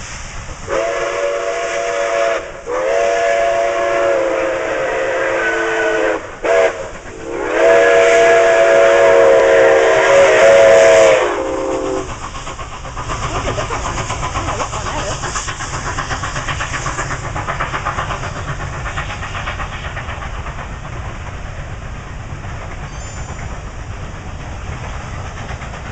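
Steam locomotive's chime whistle sounding a chord in four blasts, long, long, short, long: the grade-crossing signal. After the last blast, the train's steady running noise as it rolls past.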